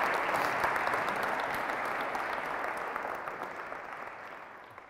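Audience applauding after a lecture, the clapping steadily fading out.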